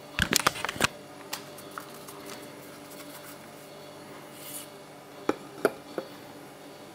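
Handling noise: a quick cluster of sharp clicks and knocks at the start, a couple of light ticks, then three clicks about a third of a second apart near the end, over a faint steady hum.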